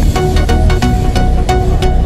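Electronic dance music with a heavy bass and a steady, fast beat.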